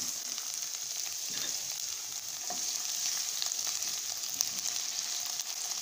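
Chopped onions frying in hot oil in a steel pot, stirred with a wooden spatula: a steady sizzling hiss dotted with small crackles.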